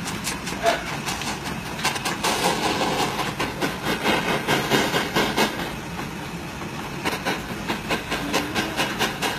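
Gas torch flame blowing with a rough, crackling hiss as it melts a one-gram piece of gold chain in a melting dish.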